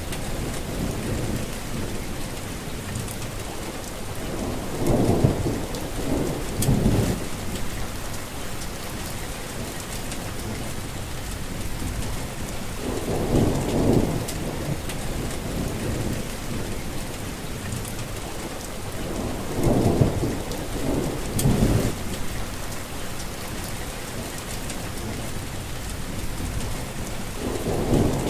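Steady rain falling, with thunder rumbling low several times a few seconds apart, about six short peals in all.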